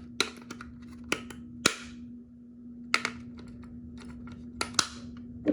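About seven sharp hard-plastic clicks and knocks, spaced irregularly, from handling a Kidde KN-COSM-B smoke and carbon monoxide alarm while its batteries are fitted to power it up.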